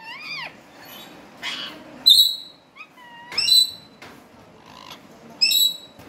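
Green Indian ringneck parakeets calling: a few short, sharp screeches about two seconds in, about three and a half seconds in and near the end, with softer gliding calls between them.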